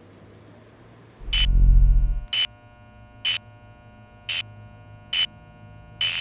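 A loud, deep electronic boom about a second in, then short high electronic beeps about once a second, five in all. Near the end a steady high electronic tone with a hiss begins.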